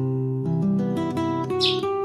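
Acoustic guitar music: plucked notes ringing on one after another. A bird calls briefly near the end.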